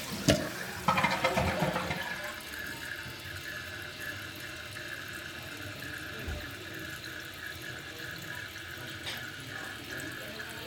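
2008 Kohler Kelston toilet flushing: a loud rush of water in the first couple of seconds, then a steady hiss and running water as the tank refills.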